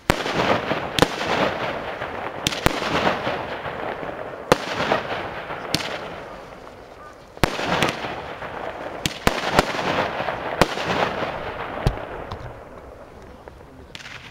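A consumer fireworks battery firing shot after shot, about a dozen sharp bangs at uneven intervals. Each bang is followed by a crackling fizz that fades away. The shots die down near the end.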